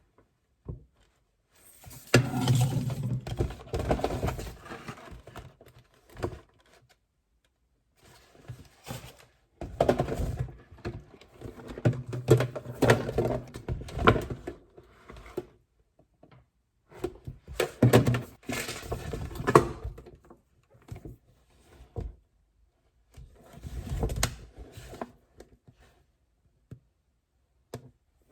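Objects being handled: rustling, small clicks and knocks on a hard surface, in four bursts with quiet gaps between.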